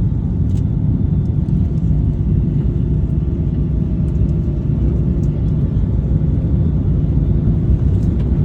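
Steady low rumble inside the cabin of a Boeing 737 rolling on the ground after landing: engine and airframe noise with wheel rumble. A faint steady hum joins about four seconds in.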